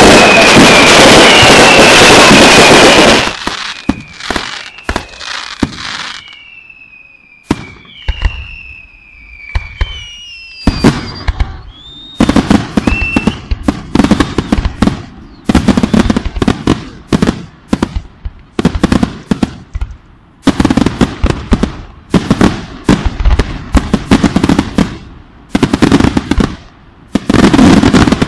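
Aerial fireworks display: a dense, continuous barrage of bangs and crackle for the first three seconds, then scattered cracks with whistles falling in pitch. From about twelve seconds in, a fast run of shell bursts and crackling, roughly two bangs a second.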